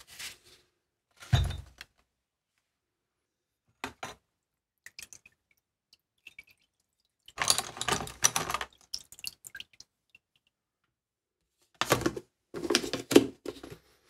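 Metal parts handled in a plastic tub of solvent cleaner, the liquid splashing and dripping, and set down on paper with dull knocks. It comes in separate short bursts with quiet gaps between, the loudest a deep knock near the start.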